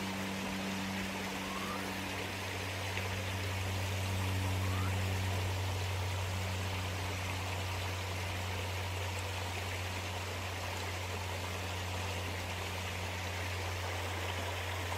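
Creek water running over rocks, with a steady low drone underneath.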